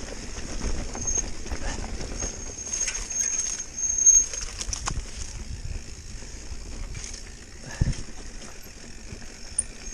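Mountain bike rattling and knocking as it rides over a rough, rocky trail, with a sharp knock about four seconds in and a low thump near eight seconds. A thin high whine comes and goes.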